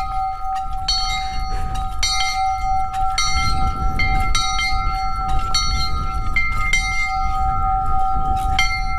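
Post-mounted metal bell being rung over and over, its clapper striking about twice a second so the ringing tone never dies away.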